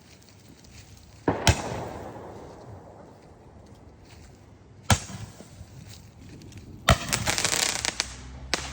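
Handheld Roman candles firing: a sharp pop a little over a second in, trailed by a hiss that fades over a few seconds, another pop about five seconds in, then a loud pop near seven seconds followed by about a second of dense crackling, and one more pop near the end.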